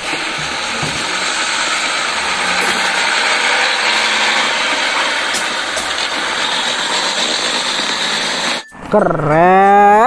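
Old Mercedes-Benz cargo truck's diesel engine running as it drives past, mixed with street traffic noise. The sound holds steady, then cuts off suddenly near the end.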